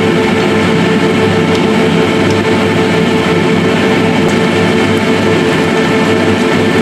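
Steady droning hum with a constant pitched tone from an induction cooktop heating a pan of simmering pork and pumpkin, with the low hum pulsing evenly.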